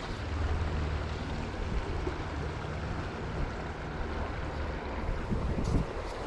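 Steady rush of river water, with a low uneven rumble of wind on the microphone.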